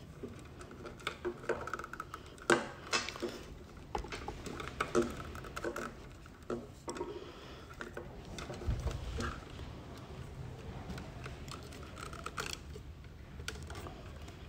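Irregular small clicks, taps and rustles of cables and connectors being handled, tied and plugged in at the back of a wireless microphone receiver resting on a hard tabletop.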